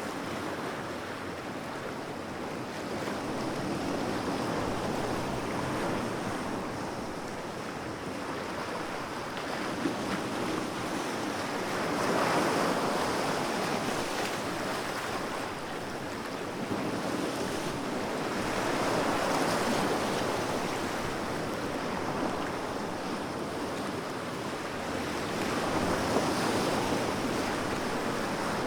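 Calm sea waves washing onto a beach, a steady rush of surf that swells and eases slowly, with a louder wash every seven seconds or so.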